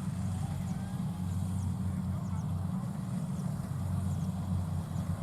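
Combine harvester's diesel engine running steadily, a low even drone.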